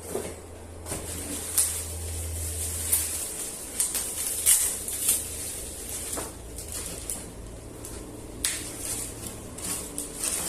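Hard plastic figure parts and packaging being handled, with many short irregular clicks and rustles, over a steady low hum.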